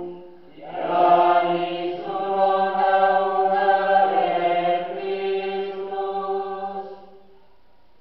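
Catholic priest chanting a sung liturgical prayer into a handheld microphone, in long held notes. The chant stops about a second before the end.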